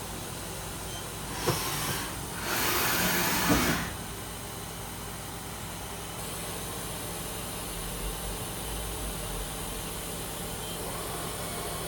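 Trak LPM CNC vertical machining center running with a steady hum and hiss, broken by two bursts of rushing hiss: a short one about one and a half seconds in and a longer one lasting about a second soon after.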